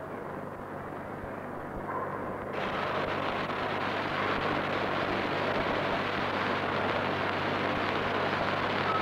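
Congregation crying out in approval between verses of a live Quran recitation, a crowd roar that swells about two and a half seconds in, over the steady low hum of an old 1980 recording.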